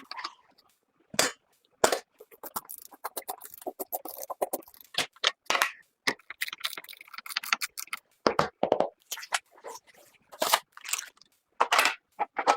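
Hands working on PC parts during a computer build: an irregular run of sharp clicks and knocks, with short scraping and rustling between them.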